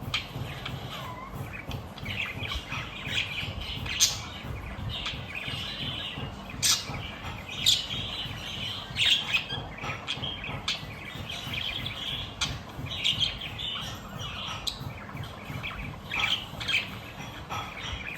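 Budgerigars chirping and chattering: a run of short chirps with several sharper, louder calls, over a low steady background rumble.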